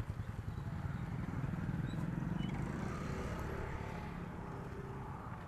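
A motorcycle passing on the road, its engine sound swelling to a peak about two seconds in and then fading away.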